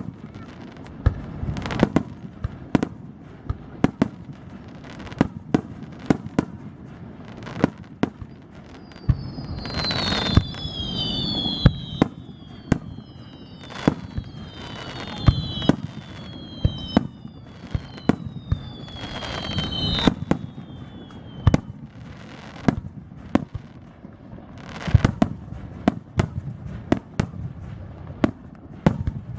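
Aerial fireworks shells bursting in a rapid volley of sharp bangs. Through the middle, clusters of short whistles fall in pitch among swells of crackling.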